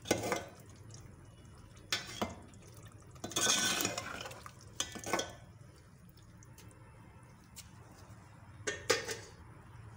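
A metal spoon stirring thick, wet keema in an aluminium pot: a handful of short wet scrapes and clinks against the pot, with pauses between them, over a faint steady low hum.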